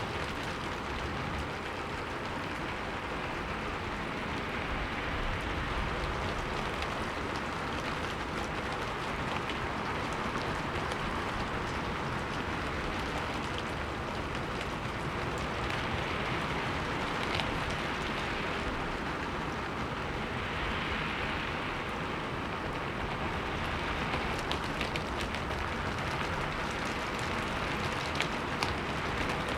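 Steady rain falling, an even hiss with occasional faint drop ticks.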